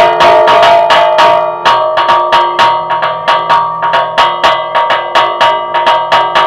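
Church tower bells chimed in a rapid hand-rung repique, the bells hanging still while their clappers strike them. The strokes come thick and overlapping at first, then settle into about three strokes a second from about a second and a half in, each leaving a long ring.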